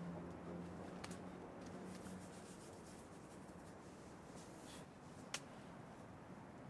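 Faint scuffing and rubbing with a few light clicks, the sharpest one about five seconds in.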